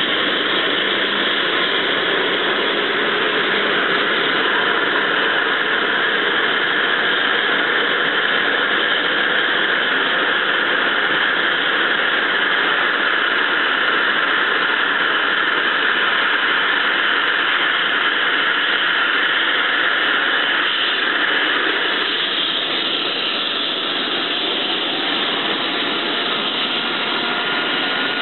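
Eurocopter EC135 helicopter's twin turboshaft engines running on the ground with a steady, high-pitched turbine whine. The level dips slightly about twenty-two seconds in, after which a faint rising tone comes in.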